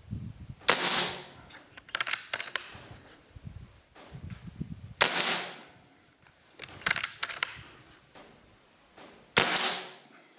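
Umarex Komplete NitroAir PCP air rifle fired three times, about four and a half seconds apart, each a sharp crack with a short fading tail. Between shots come quick metallic clicks of the action being cycled to load the next pellet.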